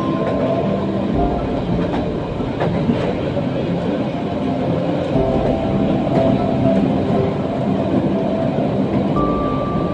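Passenger train running at speed, heard from inside the carriage: a steady rumble and rattle of the wheels on the track, with a brief high tone near the end.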